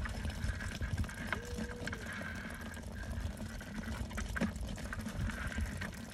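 Water running and trickling steadily over a low rumble, with a few light clicks.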